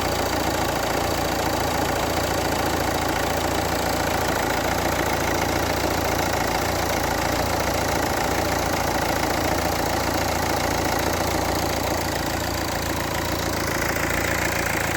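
Renault 1.5 dCi K9K four-cylinder diesel idling steadily with a newly fitted alternator decoupling pulley, run to check that the accessory-belt tensioner now stays stable.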